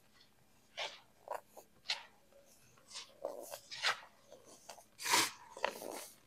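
Hands crushing and crumbling chunks of baked baking soda: about eight short, dry, irregular crunches with powdery squeaks, the loudest a little past halfway.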